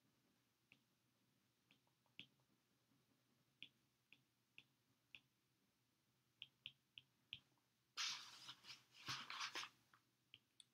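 Faint, irregular clicks of a stylus tip tapping a tablet's glass screen while handwriting, with two brief louder rustling noises about eight and nine seconds in.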